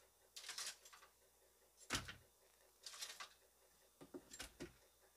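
Metal tongs lifting baked chicken wings off a foil-lined baking sheet and dropping them into a plastic bowl: a handful of short, faint rustles, scrapes and soft knocks, the loudest knock about two seconds in.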